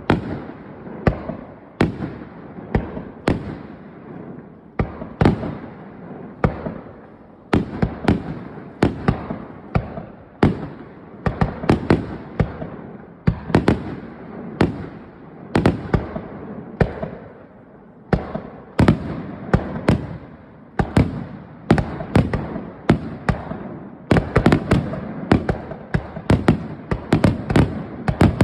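Aerial fireworks shells bursting in a continuous barrage: sharp bangs one after another, about one or two a second, each trailing off in an echoing rumble, coming thicker and faster over the last few seconds.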